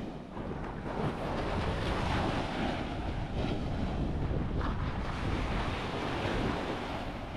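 Sea surf washing on a sandy beach, with wind buffeting the microphone as a steady low rumble.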